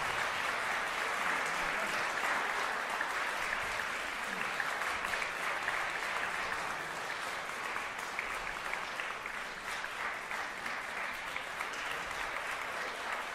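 Audience applauding: steady, dense clapping that eases off a little in the second half.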